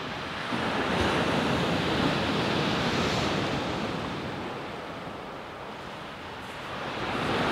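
Rough sea surf breaking and washing up a shingle beach, swelling and easing as the waves come in, with wind buffeting the microphone.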